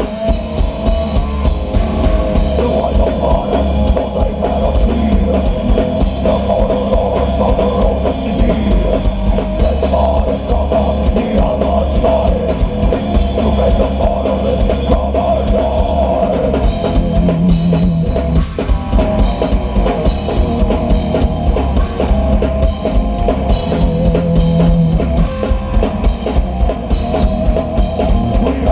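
Swedish death metal band playing live: distorted electric guitars and bass over drum kit, with a vocalist singing. The drum strokes come in a steady, even rhythm through the second half.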